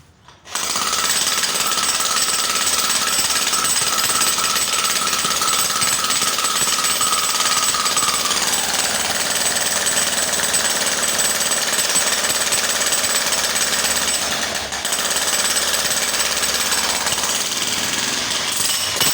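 Electric jackhammer starting up about half a second in and then running continuously at full power. A whine in its sound drops in pitch about eight seconds in, and the sound dips briefly once near the end.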